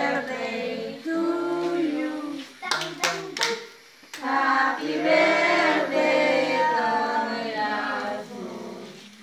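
A small group of adults and children singing a birthday song together, with a few sharp hand claps about three seconds in.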